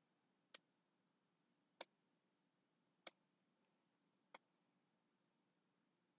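Four faint computer mouse clicks, evenly spaced a little over a second apart.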